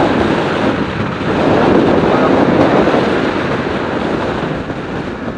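Wind rushing and buffeting over the microphone of a moving motorcycle, over road and traffic noise; the rush swells and eases.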